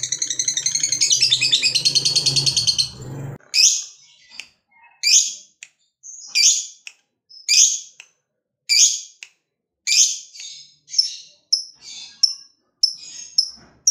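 Fischer's lovebird calling: a long, rapid, high-pitched chattering trill (the 'ngekek' that keepers prize) that stops about three and a half seconds in. It is followed by a string of single sharp, shrill calls, roughly one every second and a half, coming quicker and shorter near the end.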